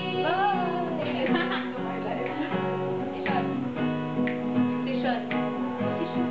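Acoustic guitar strumming chords, with a brief voice gliding up and down about half a second in.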